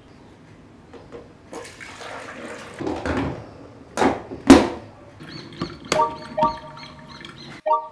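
A drip coffee maker being filled: a rushing pour, then two sharp clunks as its lid is shut. A short repeating melody of clear notes starts near the end.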